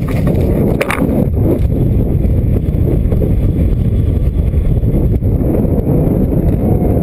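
Wind buffeting the microphone of a camera rising on a helium balloon, heard as a steady low rumble, with a brief knock about a second in.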